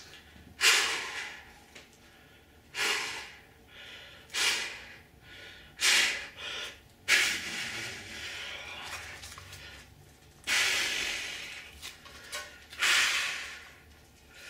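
A man's heavy, forceful breaths, about seven loud puffed exhalations, two of them long and drawn out, as he strains with his arms and hands to bend a steel frying pan.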